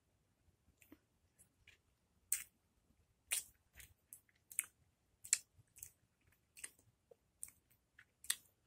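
Mouth sounds of someone biting, sucking and chewing a slice of green lemon: a string of short, sharp wet smacks and slurps, about two a second, beginning a couple of seconds in.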